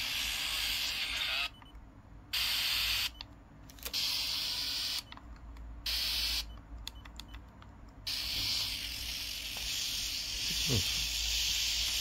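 Radio static hiss from a Sony Walkman's built-in tuner, cutting in and out several times as it switches between stations, then running steadily for the last few seconds. The interference comes from the player's display backlight lamp.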